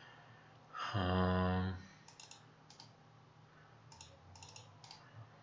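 A short held vocal hum, one steady pitch for about a second, then a scattering of computer mouse clicks, several in quick succession near the end.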